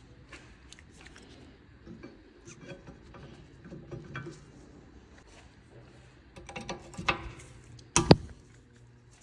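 Small metallic clicks and clinks of a new brake pad and its spring clip being handled and pushed into a rear brake caliper, busier about six and a half seconds in, with two sharp knocks about eight seconds in.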